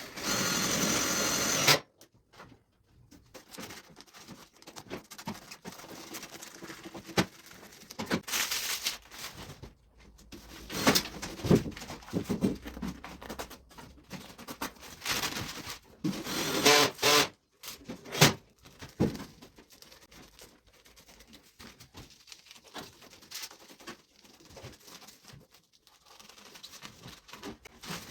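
Work and handling noises: a loud steady noise for under two seconds at the start, then scattered knocks, clicks, scrapes and rustling.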